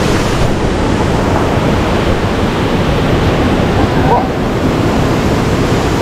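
Stream water rushing steadily over rocks and a small waterfall.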